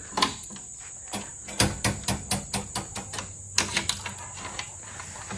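Sharp clicks and knocks in a quick, irregular run, densest through the middle, as a plywood door panel and its metal hardware are handled and fitted against the steel cage of an IBC tote.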